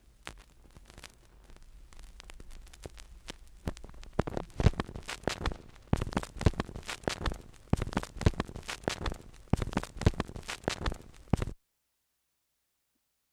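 Surface noise from a vinyl LP on an old turntable with no music playing: irregular crackles, clicks and pops that grow louder about four seconds in, then cut off suddenly shortly before the end.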